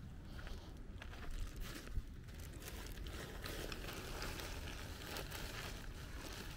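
Plastic bag of dry cat food crinkling and rustling as it is handled, with many small clicks and one sharper knock about two seconds in.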